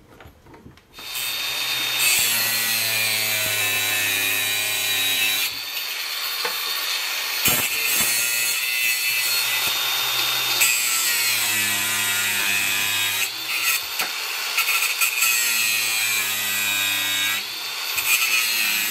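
Angle grinder cutting off the protruding ends of steel bolts. It starts about a second in and grinds in three stretches with short pauses between, the motor note dipping under load.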